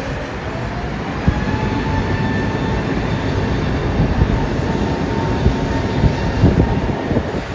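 Jet airliner's engines running on the runway, a steady rumble with a whine that rises in pitch about a second in and then holds steady. Irregular low thumps sound through it.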